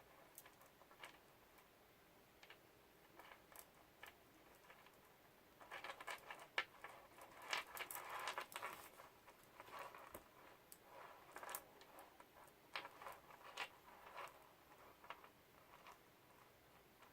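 Beads clicking against each other as they are threaded onto elastic cord: faint, scattered small clicks, busiest in two spells through the middle.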